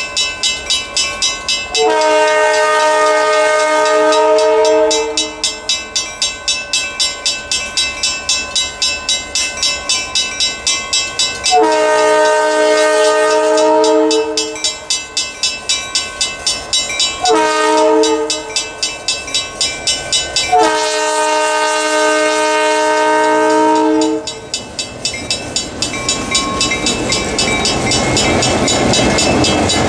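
EMD GP9 diesel locomotive sounding its multi-chime air horn in the grade-crossing pattern: long, long, short, long. Between the blasts a crossing-signal bell rings steadily, about two to three strokes a second. In the last few seconds the locomotive passes close by, its engine and wheels covering the bell.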